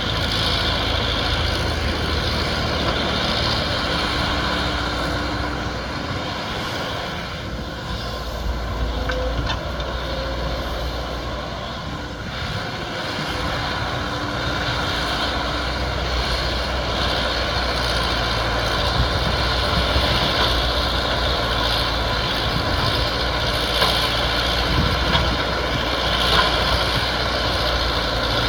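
Excavator's diesel engine running steadily under work, easing off for a few seconds about a quarter of the way in before picking up again.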